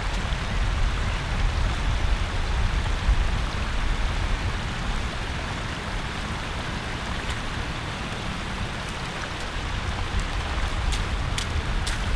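Steady rush of river water over a shallow, stony bank, with wind rumbling on the microphone; a few sharp clicks near the end.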